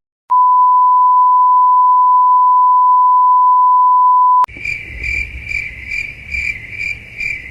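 A steady one-pitch censor bleep held for about four seconds, then cut off sharply and followed by crickets chirping in a steady pulse about twice a second over faint background hiss, the stock 'crickets' awkward-silence effect.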